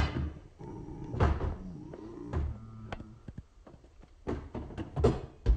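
Several knocks and thumps with light rustling, the sound of plastic dolls and toys being handled, moved and set down.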